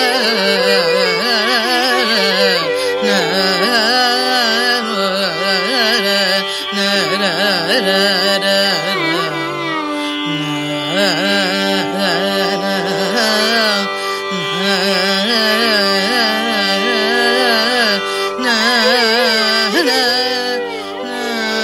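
Carnatic vocal music in raga Shankarabharanam: a female singer's melodic line, full of oscillating ornaments, over a steady drone.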